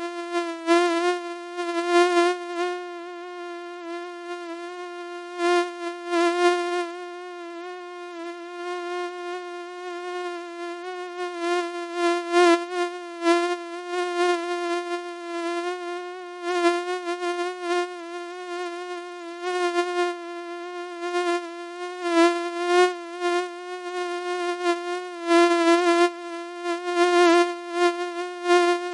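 Mosquito whine: one thin, steady buzzing pitch that wavers slightly, with short louder swells every second or two.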